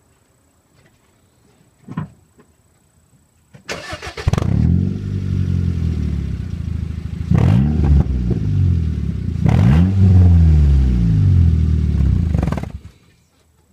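2002 Honda Civic LX's 1.7-litre four-cylinder engine with no muffler, its exhaust loud and raw at the tailpipe. It starts up about four seconds in, is revved twice with the pitch rising and falling, and then cuts off near the end.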